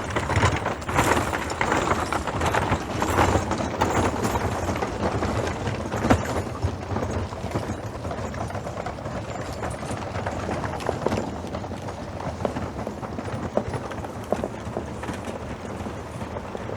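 Horse hooves clopping, a dense run of hoof knocks, busier and louder through the first six or seven seconds and then steadier.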